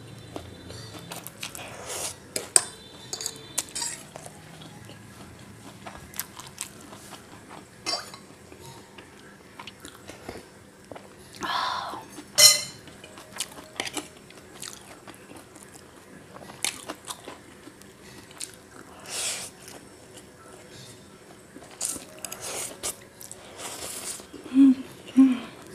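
Close-miked eating of chow mein noodles: chewing and slurping, with short clicks of cutlery on the plate. A spoon clinks sharply against the glass soup bowl about twelve seconds in.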